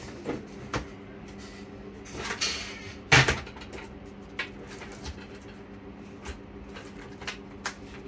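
Handling noise from a laptop motherboard and its metal top case being moved and fitted together on a workbench: scattered clicks and knocks, the loudest about three seconds in, with a brief scrape just before it. A steady low hum runs underneath.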